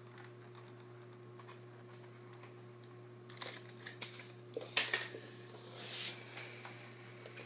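Hard plastic clicks and taps from fingers handling a toy RC car's body and folding roof panels, a few in quick succession past the middle, over a steady low hum.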